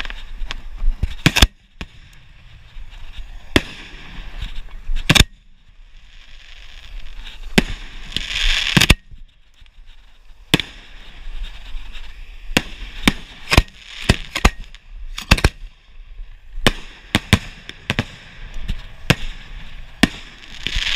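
Fireworks shells fired from mortar tube racks: an irregular series of sharp bangs, some close together. A hiss builds for a couple of seconds and cuts off abruptly about nine seconds in.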